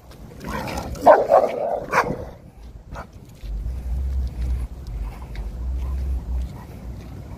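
Dog barking several times, in a cluster between about half a second and two seconds in, as two dogs face off on leads. A low rumble follows in the second half.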